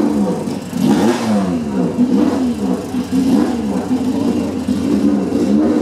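Classic racing car engine being blipped, its revs rising and falling about once a second.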